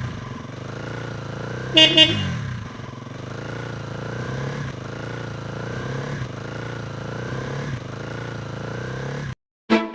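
A small vehicle engine running steadily with a slow, regular wobble in its tone. About two seconds in comes a quick double horn toot. The engine sound cuts off abruptly just before the end.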